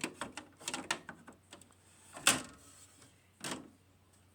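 A series of sharp clicks and knocks from handling the window air conditioner, with the loudest knock about two seconds in and another about a second later.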